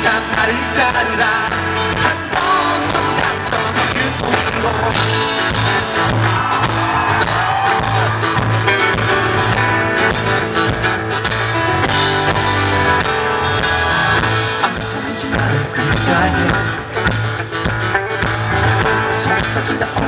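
Pop-rock band playing live: electric bass, electric guitar and drums, with a voice singing at times.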